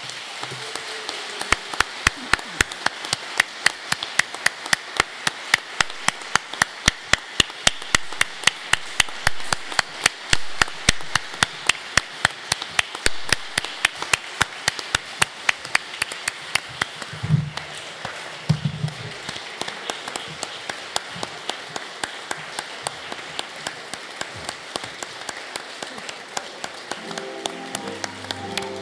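Audience applauding, with many sharp, closely spaced claps standing out above the general clapping.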